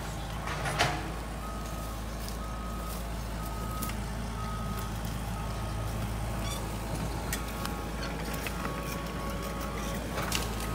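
Heavy land-clearing machine's backup alarm beeping at an even pace, about every half second, over a steady low diesel engine rumble, with one short sharp crack about a second in.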